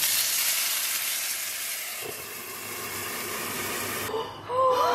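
Water poured into a hot, oiled frying pan of gyoza, hissing loudly as it flashes to steam: the steaming stage of pan-frying dumplings. The hiss cuts off abruptly about four seconds in.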